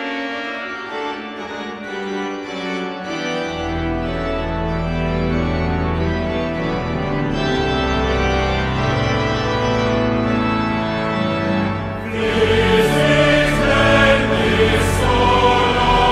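Organ and choir hymn. An organ interlude of held chords, with deep pedal bass coming in about three seconds in, then the choir comes in on the next verse about twelve seconds in, fuller and louder.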